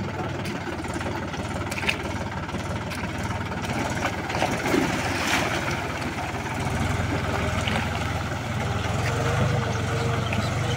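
Mahindra 275 tractor's diesel engine running under load as the tractor works through deep mud, its low drone getting louder about two-thirds of the way in.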